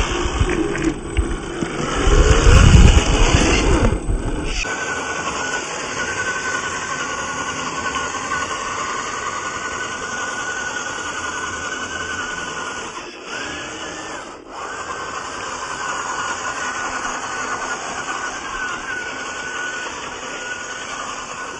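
Whine of an RC crawler's 540 35-turn brushed electric motor and gears, with the pitch wavering as the throttle changes. For the first four seconds a loud low rumble sits under it and stops suddenly about four and a half seconds in.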